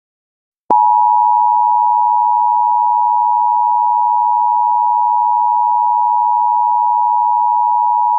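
Emergency Alert System attention signal: the two-tone 853 Hz and 960 Hz alert tone. It comes in with a click just under a second in and holds loud and perfectly steady.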